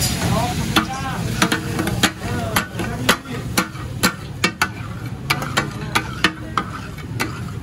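Metal spatulas clacking and scraping on a hot tawa griddle in quick irregular strokes, about two a second, some with a brief metallic ring, as the meat is stirred and chopped over a sizzle.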